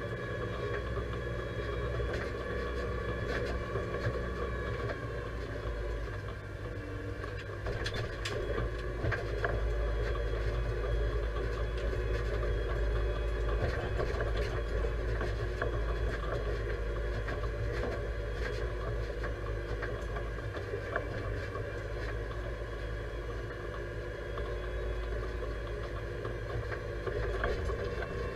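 Deutz-Fahr 5100G tractor's diesel engine running steadily, heard from inside the cab, with a steady whine over the rumble. Scattered clicks and rattles come through as it drives over a rough dirt track, with a sharper one about eight seconds in.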